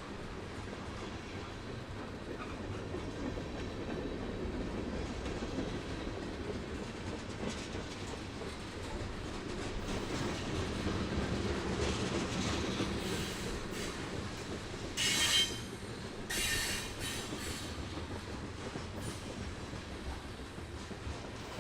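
Train rolling past on the rails with a steady rumble and wheel clatter. Twice in quick succession, about two-thirds of the way through, there is a short, high-pitched squeal of wheels on the rail.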